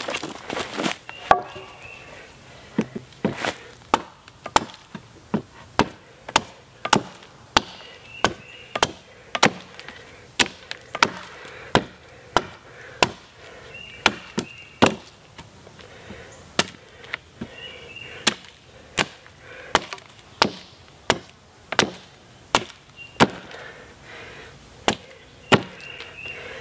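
A hatchet chopping a point onto the end of a wooden pole, with a steady run of sharp blows a little more than one a second.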